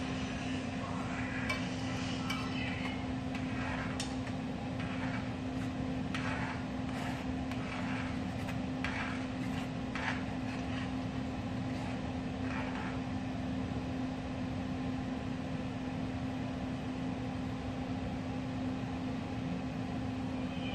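A steady hum with one constant low tone, like a running appliance or fan. Faint clicks and small clinks come over it in the first half.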